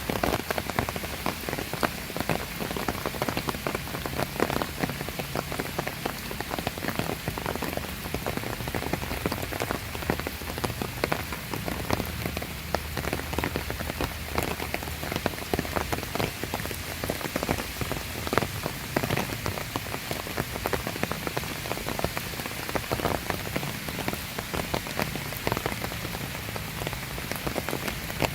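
Steady summer rain falling, a continuous hiss with many close raindrops landing as sharp ticks.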